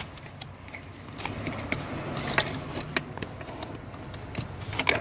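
Scattered light clicks and rattles of hard plastic as hands work the mirror's wiring connector and the plastic door parts of a Ford F-150.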